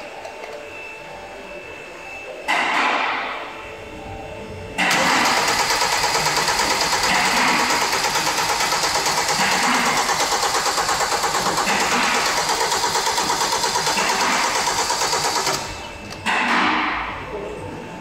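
Starter cranking a freshly rebuilt Kia Sorento G4KE 2.4-litre four-cylinder engine for about ten seconds with the injectors out of action, so it turns over with an even pulsing beat but does not fire: priming the oil system to build oil pressure before the first start. Shorter bursts of noise come about two seconds before the cranking and just after it stops.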